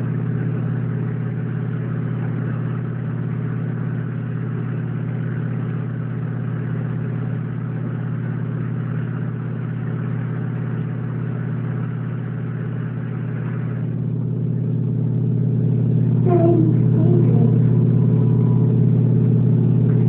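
A small electric motor running with a steady hum, with a higher hiss over it that stops about two-thirds of the way in.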